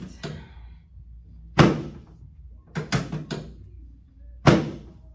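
Sharp thumps and knocks from a chiropractic adjustment on the treatment table, part of correcting a short left leg coming from the sacrum. A loud thump comes about a second and a half in, then a quick run of four knocks around three seconds, and another loud thump near the end.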